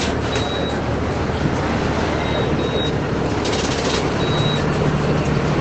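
Volkswagen 17.230 EOD bus's diesel engine running under way, heard from inside the cabin, its low drone growing stronger toward the end. Short high electronic beeps sound three times, and a brief hiss comes about three and a half seconds in.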